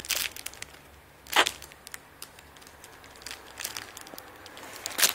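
Clear plastic packaging crinkling and rustling as squishy toys are handled, with faint scattered ticks and two sharper crackles, one about a second and a half in and one near the end.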